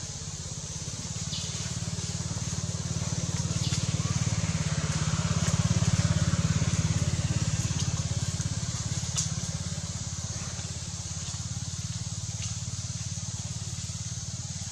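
A small engine running steadily with a fast even throb, growing louder toward the middle and fading again, over a steady high hiss.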